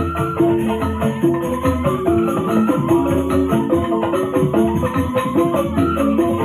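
Music with a steady beat: a melody of pitched notes over regular percussion.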